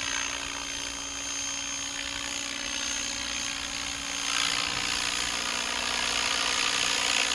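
Radio-controlled model helicopter flying, its rotor and motor running with a steady high whine. The blade noise grows louder about four seconds in as it manoeuvres.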